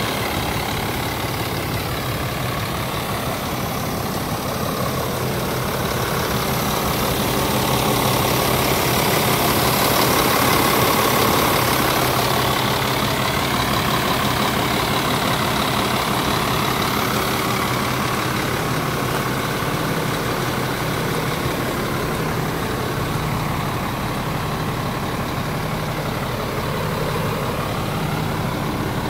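Scania R450 truck's diesel engine, a 13-litre inline six, idling steadily. It grows a little louder for a few seconds near the middle.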